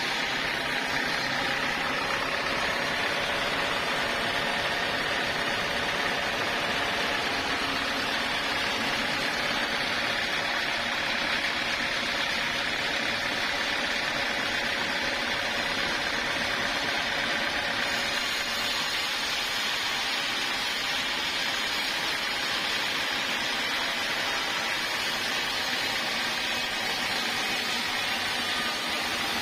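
Sawmill machinery running with a steady, unbroken mechanical noise that holds the same level throughout.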